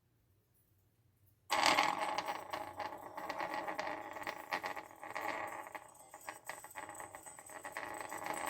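Music played through a homemade 3D-printed speaker with a printed diaphragm, wound voice coil and stack of neodymium magnets, cutting in suddenly about a second and a half in. It comes out very distorted and rattly, full of clicks.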